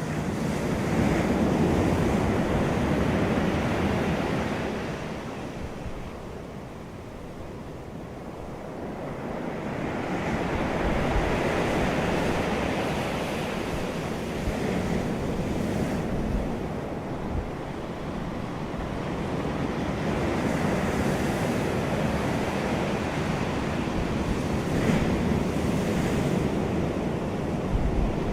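Ocean surf breaking and washing in, swelling and falling away over several seconds at a time, about three swells.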